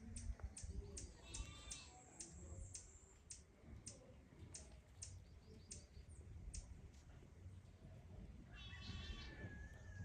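Faint, high bleats from young goat kids, one short call about a second and a half in and a longer one near the end, among scattered light clicks.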